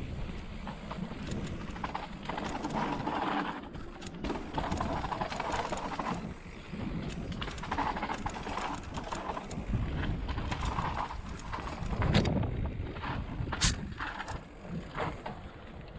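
Mountain bike rolling down a dirt forest singletrack, the tyres rumbling and the bike knocking and rattling over bumps and roots. The rider breathes hard in repeated gusts under race effort.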